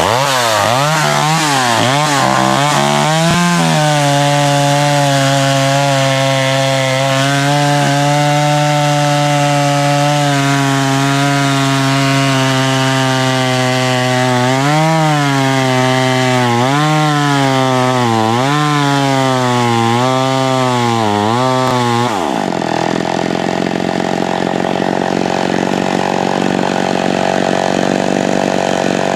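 Small vintage two-stroke chainsaw running at full throttle in a cut through thick stump wood, its pitch sagging and recovering under load several times. About three quarters of the way through the engine speed drops sharply and it runs on lower. The owner says it is leaning out, which he puts down to a wearing fuel-pump diaphragm in the carburetor.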